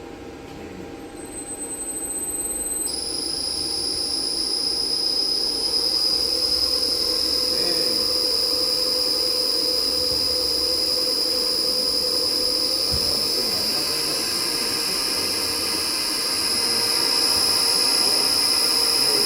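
Electric motor driven by a repaired Hyundai HIRUN N300 inverter, starting and speeding up over the first few seconds, then running steadily. From about three seconds in, a steady high-pitched whine from the inverter's switching sits over the motor, and the whole sound grows a little louder near the end.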